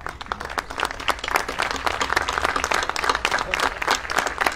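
Audience applause, many hands clapping, breaking out suddenly and holding steady.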